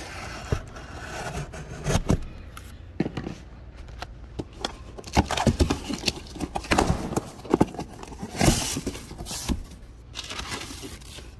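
A cardboard box being cut open with a utility knife and its flaps pulled back: a run of irregular scrapes, cuts and knocks, busiest about halfway through.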